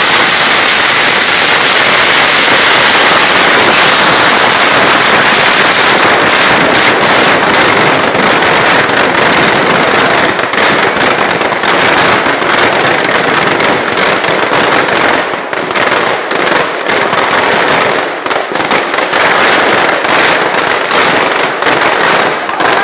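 Firecrackers packed into a burning Ravana effigy going off in a loud, continuous crackle. About halfway through it breaks up into rapid separate bangs with brief gaps.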